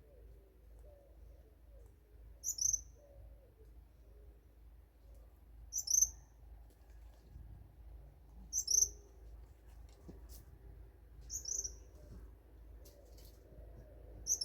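Forest animal calls: a short, high double chirp repeated five times, about every three seconds, over faint low warbling calls.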